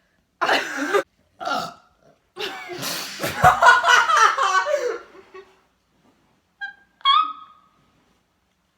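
Girls burping: two short burps in the first two seconds, then a long drawn-out burp of about three seconds, and a brief pitched vocal sound near the end.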